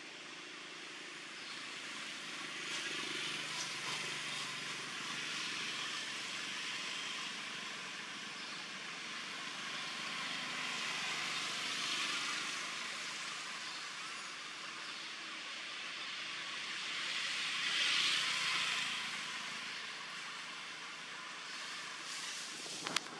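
Outdoor background hiss, a diffuse rushing noise that swells and fades, loudest twice, in the middle and about three-quarters through, with a brief sharp click near the end.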